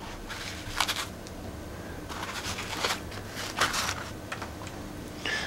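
Small plastic 1/6-scale rifle parts being lifted out of foam box inserts and set down on a table: a few scattered light clicks and rustles.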